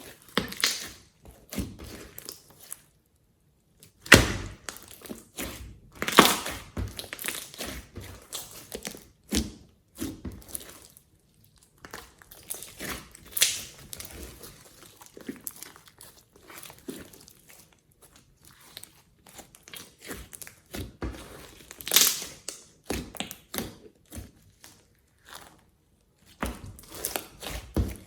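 Slime being squeezed and crushed by hand: a run of irregular crackles, squelches and sharp pops, with a few louder pops, including one about four seconds in.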